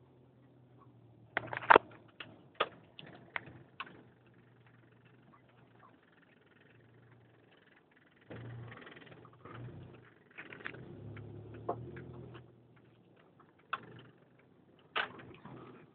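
Clunking from Ksport coilover suspension: a few sharp knocks, the loudest about two seconds in followed quickly by three more, and two more near the end, over a low hum and a stretch of rumbling in the middle.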